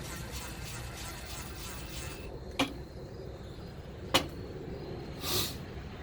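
Two sharp clicks about a second and a half apart, then a brief hiss near the end, as tools and parts are handled while the air pump is being put back together.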